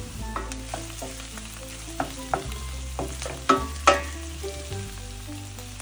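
Diced onions and green chillies sizzling in hot oil in a stainless steel frying pan while a wooden spoon stirs them. The spoon knocks and scrapes against the pan several times, loudest between about two and four seconds in.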